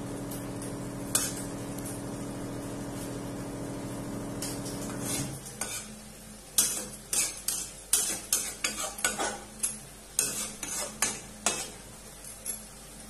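A metal spoon stirring and scraping a thick dry-fish and bamboo-shoot curry in a metal kadhai, with a faint sizzle as the last of the water cooks off. The spoon clanks against the pan again and again in the second half. A steady low hum underneath cuts off about five seconds in.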